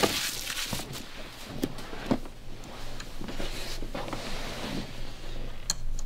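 A person shifting position on a padded vinyl treatment table: rustling of clothing and padding, with a few light clicks and knocks. A faint low steady hum sets in about halfway through.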